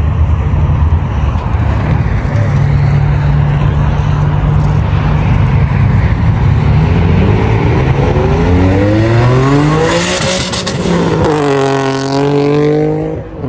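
A car engine rumbling at low revs, then revving hard, its exhaust note climbing steadily for several seconds. It then holds at high revs bouncing off the rev limiter and cuts off abruptly near the end.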